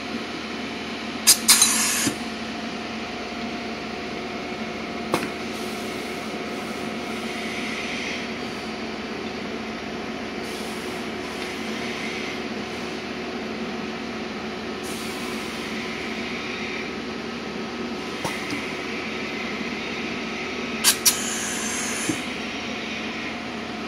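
Argon spot-welding station with a pneumatic clamping fixture, over a steady machine hum. About a second and a half in, and again near the end, come short loud bursts of sharp clicks and hiss. Softer hisses of gas or air fall in between.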